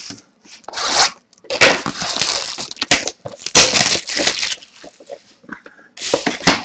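Trading-card box and pack packaging being handled and torn open by hand: a run of rough tearing and crinkling strokes, then a last short burst near the end.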